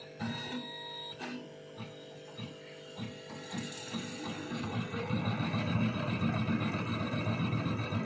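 Computerized embroidery machine stitching in a fast, even rhythm of needle strokes. The stitching starts up partway through and grows louder, after a few scattered clicks at the start.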